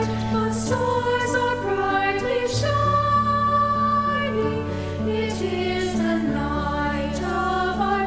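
Mixed high school choir of male and female voices singing a slow Christmas carol in held chords, which change every second or two.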